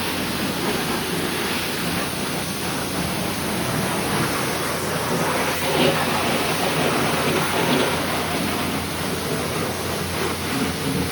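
High-pressure car-wash wand spraying water onto a muddy bike, a steady hissing spray with small changes as the jet moves over the surfaces.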